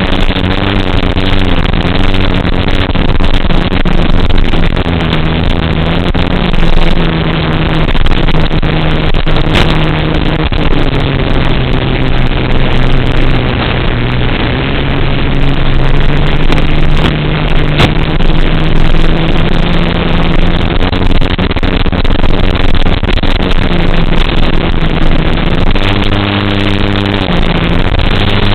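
FPV racing drone's motors and propellers running in flight, with heavy wind noise; the motor hum shifts up and down in pitch as the throttle changes.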